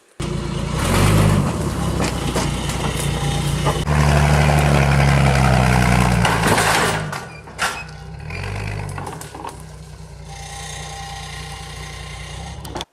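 Heavy vehicle engine running and revving, its pitch swelling up and down about a second in and again about eight seconds in. It settles to a quieter, steadier run for the last few seconds, then cuts off abruptly.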